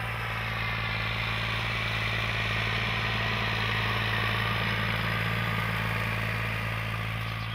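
Farm tractor's diesel engine running steadily while pulling a tillage implement across a ploughed field, a constant low drone that swells a little and then eases as it moves away.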